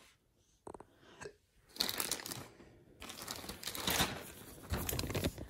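Plastic packaging crinkling and rustling as it is handled: a clear zip-lock bag of clothing and a white plastic mailer. Quiet at first, then dense crackly bursts from about two seconds in.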